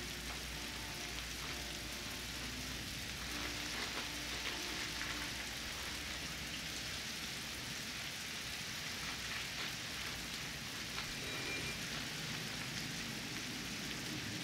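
Steady rain, an even hiss of rain falling.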